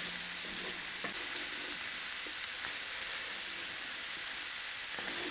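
Mushrooms, minced meat and peas frying in a large pan over a gas burner: a steady sizzle, with a couple of faint ticks about a second in and near the end.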